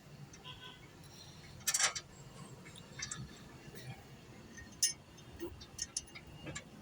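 Scattered light metallic clinks and ticks of hand tools and parts against the brake disc and hub, with two sharper clinks about two and five seconds in.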